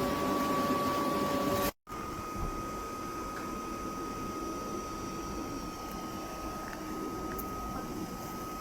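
Electric blower fan of an inflatable bouncy castle running steadily: a constant whirring hum with a high, steady whine. It drops out for an instant about two seconds in and carries on a little quieter.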